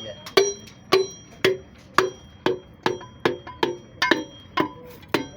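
Steady hammer blows on metal, about two a second and getting slightly quicker, each leaving a short metallic ring: a cylinder sleeve being driven out of an Isuzu 6BG diesel engine block.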